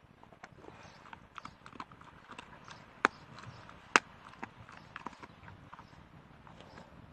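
Golden retriever crunching on a raw meaty bone with its back teeth: a run of small cracks and clicks, with two loud sharp cracks about three and four seconds in.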